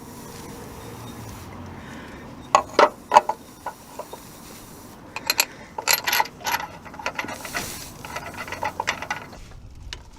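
Metal clicks and clinks of bolts and hand tools as new crankshaft pulley bolts are fitted: a few sharp knocks, then a longer run of quick clicking near the end.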